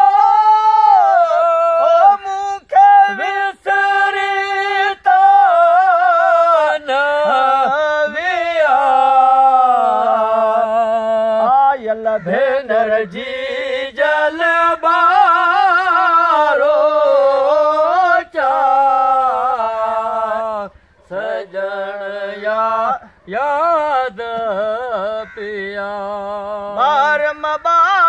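A man singing a Sindhi folk song unaccompanied: a high, richly ornamented melody in long phrases with short breaths between them. The line starts high, sinks lower through the middle and climbs again near the end.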